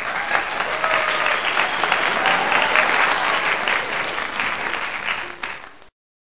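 Audience applause: dense, steady clapping that tapers a little and then cuts off abruptly near the end.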